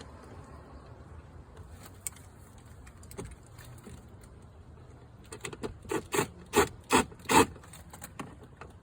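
Faint rubbing and handling noise, then a quick run of sharp clicks and knocks that grow louder over about two seconds, from work on the glove box latch assembly and its screws.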